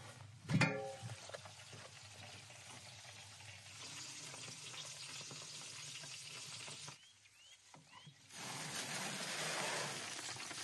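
The heavy metal door of a brick wood-fired oven is pulled open with a brief, loud metal squeal, followed by the steady sizzling of fat and juices on a whole roasted lamb lying in its tray. The sizzling drops away for a moment and then returns louder near the end.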